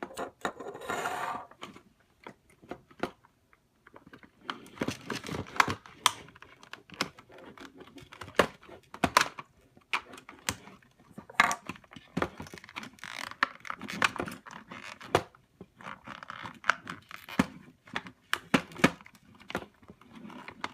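Small plastic toy pieces being handled and unpacked: irregular clicks and clatters, mixed with rustling and tearing of packaging.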